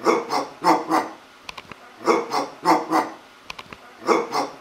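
A man imitating a dog barking with his voice: three rounds of four quick barks, about two seconds apart.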